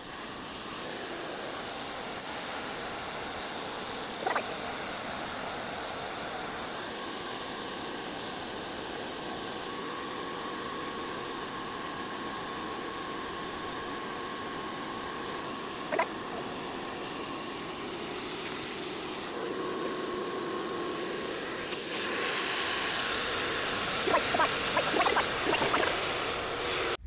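Pressure washer's water jet spraying against a house wall, blasting off mould: a steady hiss that grows louder and softer as the spray moves across the surface.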